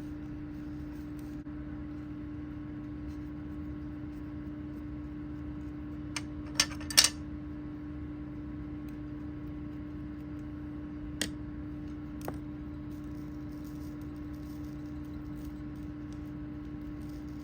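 A steady hum underlies a few light clicks and taps of small hard craft items being handled and set down: a quick cluster of three or four about six to seven seconds in, then two single clicks later.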